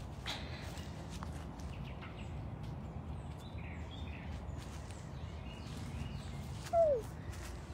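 A lynx gives one short call near the end that falls in pitch. Faint rustling runs beneath it.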